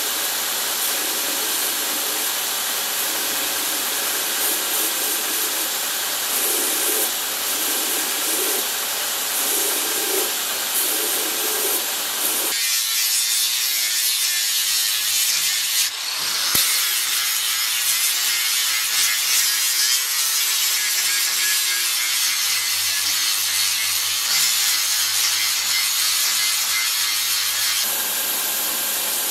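Belt grinder running while a small steel part is pressed against its sanding belt. About twelve seconds in the sound switches abruptly to an angle grinder with an abrasive disc grinding steel clamped in a vise, a hissier sound with a single sharp click partway through. Near the end the belt grinder returns.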